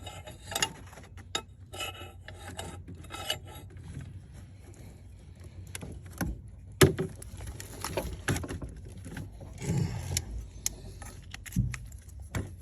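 Metal hand tools, a ratchet and wrenches, clinking, scraping and clicking as they are fitted and worked on a bolt, with one sharp metallic click about seven seconds in.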